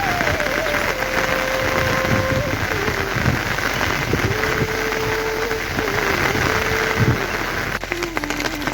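Heavy rain falling steadily, with a faint held tone over it that steps up and down in pitch.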